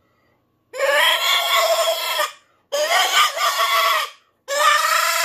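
Little T Pro Series coon squaller, a mouth-blown reed call that imitates a raccoon, blown in three long squalls of about a second and a half each, the third starting near the end.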